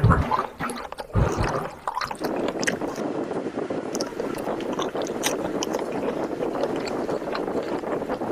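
Chewing a mouthful of curry-soaked rice eaten by hand, close to the microphone, with scattered mouth clicks. A low thud comes about a second in.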